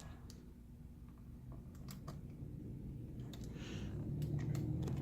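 Faint, scattered small clicks and taps of a Torx screwdriver and small metal parts as screws are worked out of a laptop's hinge. A low steady hum grows louder in the last couple of seconds.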